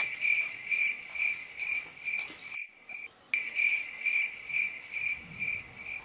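An insect chirping in a steady, even rhythm, about three high-pitched chirps a second. The chirping breaks off for a moment near the middle, then carries on.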